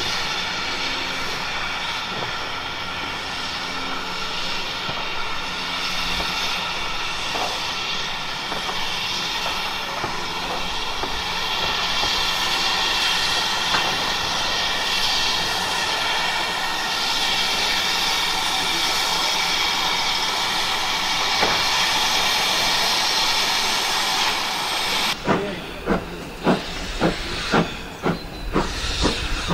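Standing steam locomotive hissing steadily. About 25 seconds in, GWR Modified Hall 4-6-0 No. 6960 Raveningham Hall's exhaust beats start at about two a second as it moves off, with its cylinder drain cocks blowing steam.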